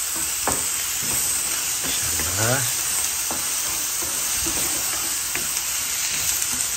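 Diced onions sizzling steadily as they fry in butter in a nonstick frying pan, stirred and scraped around with a wooden spoon.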